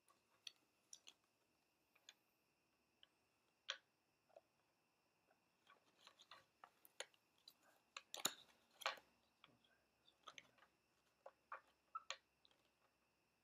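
Faint, irregular clicks and soft snaps of a deck of playing cards being handled: cards peeled off the deck, squared in the hands and set down on a glass tabletop. The clicks come thickest in the middle.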